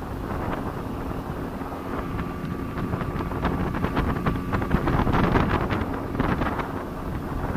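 Speedboat running at speed: a steady engine hum under heavy wind buffeting on the microphone, with irregular sharp thumps.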